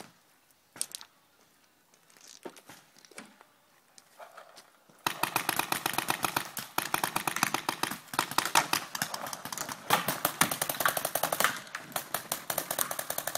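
Paintball markers firing: a few single shots, then from about five seconds in rapid strings of shots that keep up with hardly a break.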